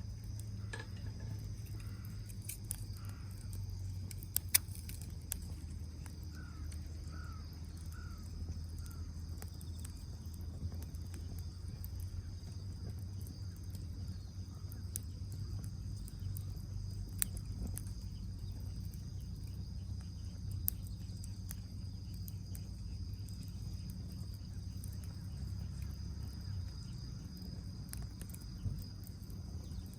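Wood fire crackling in a fire pit, with scattered sharp pops, over a steady drone of insects. A short run of about five bird calls comes between six and nine seconds in.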